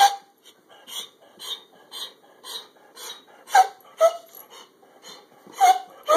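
A dog huffing and whining in short rhythmic bursts, about two a second, with a few louder whiny yelps about halfway through and near the end: a dog grumbling at a puppy that is biting it.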